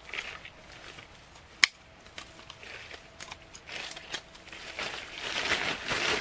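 Dry grass and tent fabric rustling as a metal tent stake is worked into grassy ground by hand, with one sharp click about a second and a half in. The rustling grows louder near the end.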